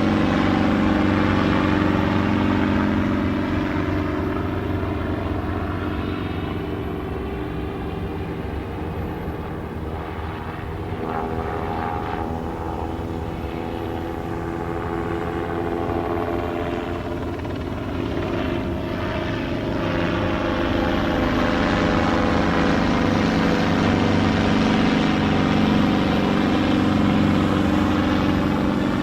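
Police helicopter flying over: a steady rotor and engine drone whose pitch slowly bends as it moves. It fades somewhat around the middle and grows louder again toward the end.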